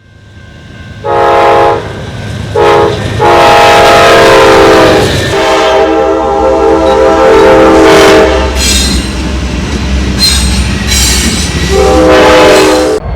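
Diesel locomotive air horn sounding a series of blasts, several notes at once: two short, two long, then after a pause one more short blast. High-pitched squeals come in the pause between the blasts, over a low rumble.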